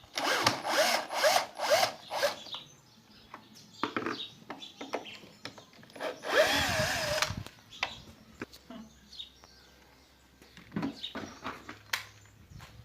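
A small power tool's motor run in several short bursts in the first two seconds, then once more for about a second midway, its pitch rising and wavering. Scattered clicks and knocks come in between.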